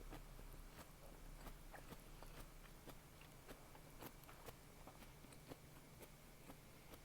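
Close-miked chewing and biting of a beef tongue salad topped with nori and cheese-filled chikuwa: faint, irregular mouth clicks and small crunches, several a second.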